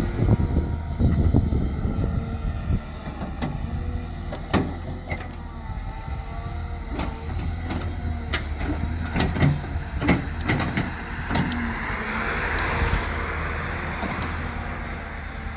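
Cat M318D wheeled excavator with its diesel engine running steadily, over which come repeated metallic clanks and knocks from the machine working. A hiss rises and fades about twelve seconds in.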